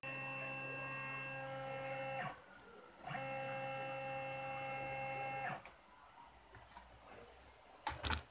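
CNC router's stepper motors driving an axis move: a steady whine at one pitch, on twice for about two and a half seconds each with a short pause between, starting and stopping abruptly. A short sharp knock near the end.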